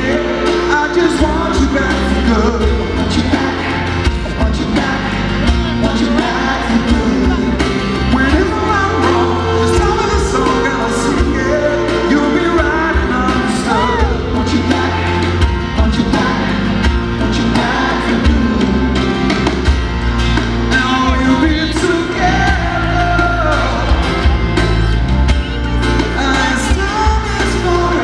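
Live pop band playing a ballad in a large arena, with acoustic and electric guitars, bass and drums under a male lead vocal. The music is loud and steady throughout.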